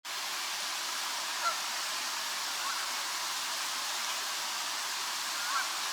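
A few short honks from a Canada goose, the clearest about one and a half seconds in and near the end, over a steady rushing background noise.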